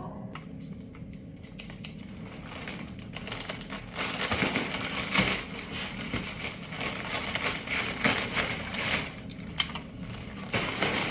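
Parcel packaging being opened by hand: irregular rustling, crinkling and tearing, busier from about four seconds in.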